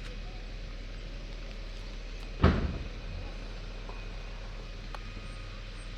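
A single sharp knock about two and a half seconds in, over a steady low hum.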